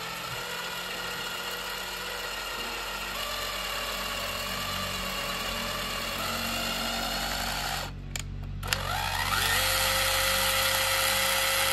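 Cordless drill turning an M6x1 tap slowly into the stripped oil check bolt hole of a KTM clutch cover, cutting new threads for a heli-coil. The motor whines steadily at low speed, stops briefly about eight seconds in, then spins up with a rising whine and runs faster and louder.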